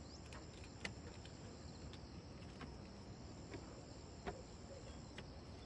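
Insects trilling steadily at a high pitch, with a few faint sharp clicks, the clearest about a second in and about four seconds in.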